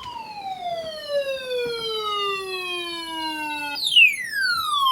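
Siren tone falling slowly in pitch in one long downward sweep. Near the end it jumps back to a high pitch and sweeps down again quickly, then cuts off suddenly.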